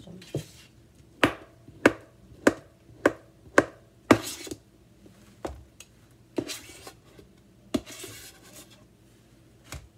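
Knife chopping on a plastic cutting board: a run of about seven sharp knocks roughly every half second, then a few scattered knocks and short scrapes.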